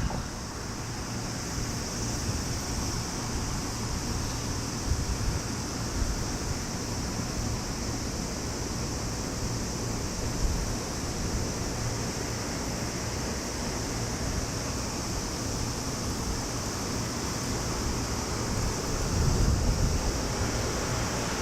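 Steady outdoor background with wind rumbling on the microphone and a constant high-pitched hiss. It grows slightly louder near the end.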